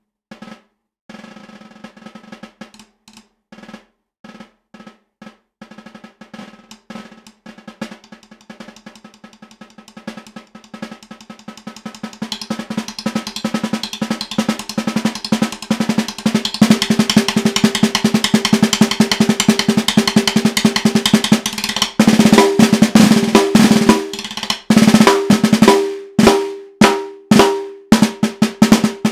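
Solo snare drum played with wooden sticks: soft, sparse strokes that thicken into fast, dense strokes and swell to loud about halfway through, then give way to loud, separate accented strokes with short pauses between them in the last third.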